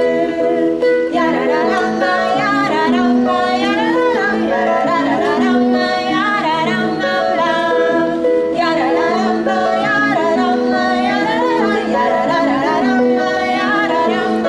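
Live acoustic music: a singing voice with wavering, gliding notes over held tones and plucked strings.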